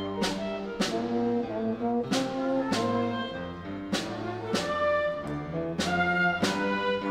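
Small chamber ensemble playing live: sustained pitched notes from wind and string instruments over a steady pulse of sharp accented strikes, a little less than twice a second.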